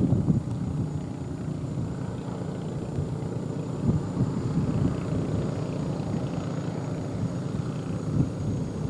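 Sakpattana SS100 mini rice combine harvester running, its engine a steady low drone with no change in speed.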